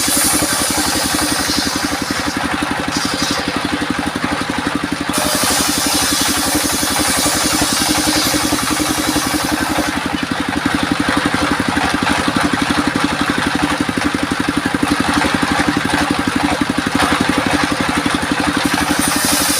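Homemade engine-driven circular sawmill running steadily, its engine pulsing with a fast, even beat. The high hiss above it comes and goes a few times.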